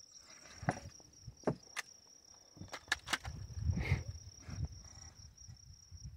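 An insect's steady high-pitched trill in the grass, with several sharp clicks and a low rumble of handling or wind in between.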